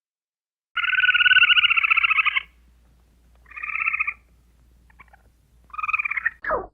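An animal's call: three buzzy, rapidly pulsing trills, the first about two seconds long and the next two shorter, followed by a quick falling sweep near the end.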